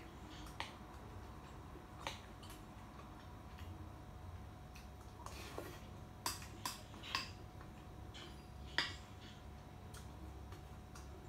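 Spoon clinking against a glass rice bowl as rice is scooped up, a handful of sharp clinks with a quick run of three a little past the middle and the loudest just after.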